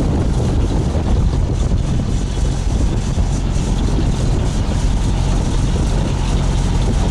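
A boat's diesel engine running steadily: an even low hum with a constant hiss over it.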